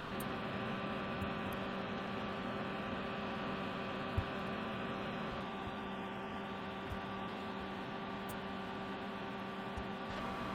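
Steady electrical hum and hiss, with a few faint clicks, the clearest about four seconds in.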